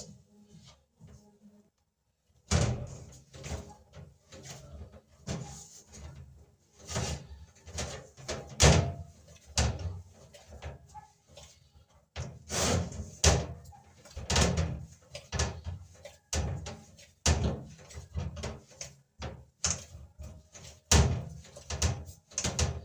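Dumpling dough being kneaded by hand in a metal pot in a stainless steel sink: irregular thumps and knocks, about one a second, as the dough is pressed and slapped and the pot bumps against the sink. The knocking starts about two seconds in.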